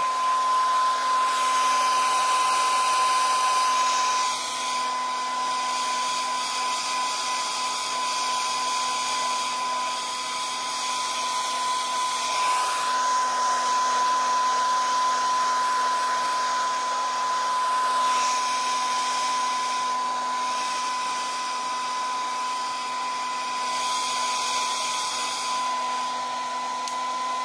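Handheld hair dryer running steadily on wet hair: a high motor whine and a lower hum over the rush of blown air.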